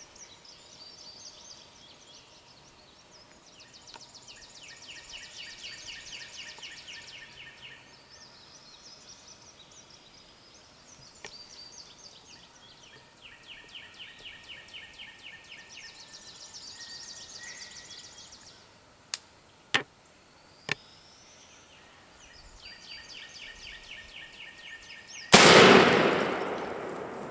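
Songbirds singing repeated buzzy trills, a few sharp clicks about two-thirds through, then near the end a single loud shotgun blast fired at a wild turkey gobbler, dying away over about two seconds.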